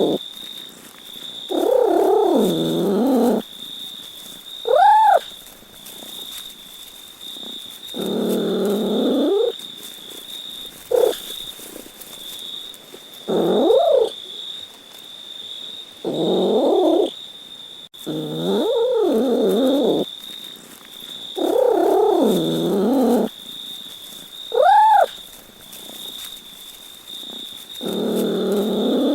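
A cat meowing over and over: long drawn-out meows every few seconds, with a few short, high, quick meows between them. A steady high-pitched whine runs underneath. The same run of meows repeats about halfway through.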